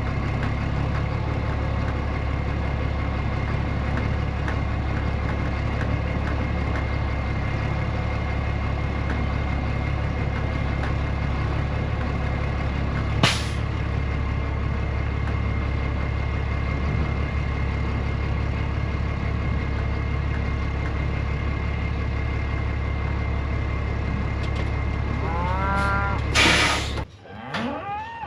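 Tractor engine running steadily, with one sharp click about halfway through. Near the end, cattle moo and the engine sound cuts off abruptly.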